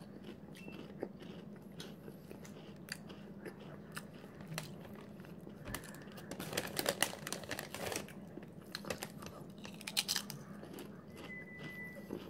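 Potato chips being bitten and chewed close to the microphone: a run of crisp crunches, densest about six to eight seconds in and again around ten seconds.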